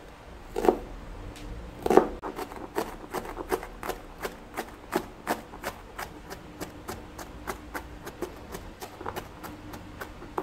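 Chef's knife chopping red onion on a plastic cutting board: a steady run of knocks, about three a second, with two louder strikes in the first two seconds.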